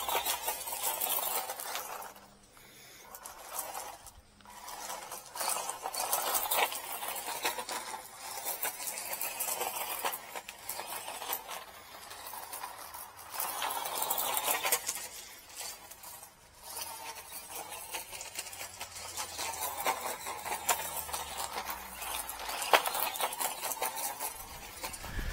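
Small HoSpeed HS 18323 RC truck driving: its electric motor whines, rising and falling several times with the throttle, over rattling and clicking from the chassis and wheels on the ground.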